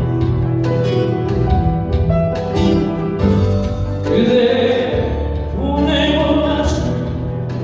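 Live ballad music between sung lines: keyboard and guitar accompaniment over steady bass notes, with a long wavering lead note held about four seconds in.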